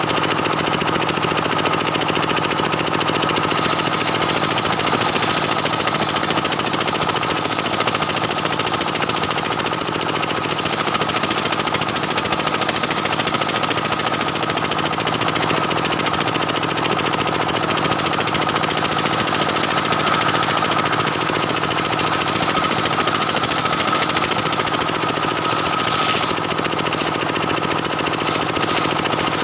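Stihl 070 two-stroke chainsaw held at steady high revs, ripping lengthwise through a dense jackfruit-wood beam with a continuous loud cutting sound.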